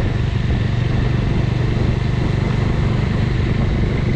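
Motorcycle engine running at a steady pitch, with no change in revs.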